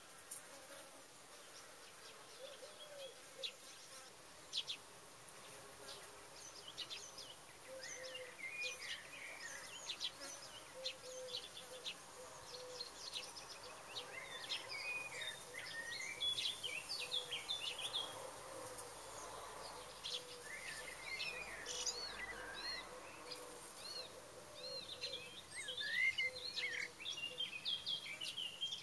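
A flying insect, bee or fly, buzzing close by, its hum wavering in pitch. Wild songbirds chirp and sing throughout, busiest from about eight seconds in.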